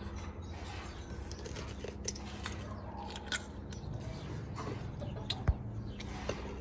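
Children biting and chewing juicy chile-sauced mango slices: wet mouth sounds and scattered soft clicks, with a single sharp thump about five and a half seconds in, over a low steady hum.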